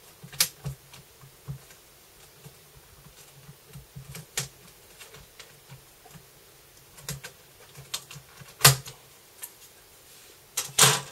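Plastic retaining clips of a Dell Inspiron 14 3000 series screen bezel snapping free as it is pried off by hand: a scattered series of clicks and pops. The loudest come about eight and a half seconds in and near the end.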